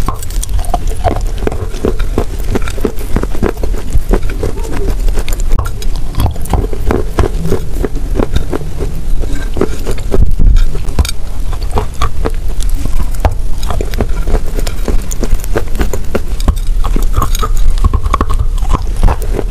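Close-miked biting and chewing of a cream-filled cookie coated in wet chalk powder: a dense, continuous run of crisp crunches and crackles.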